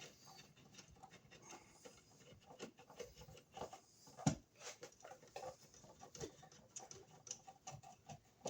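Faint, irregular small clicks and scrapes of a screw and hardware being handled and driven to fasten an electrical receptacle into its wall box, with one sharper click about four seconds in.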